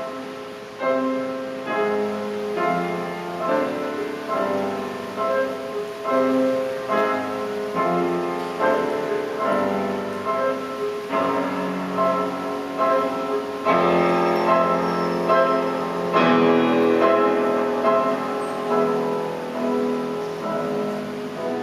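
Youth orchestra playing classical music with piano, a stream of chords and sustained notes that swells fuller around two thirds of the way in.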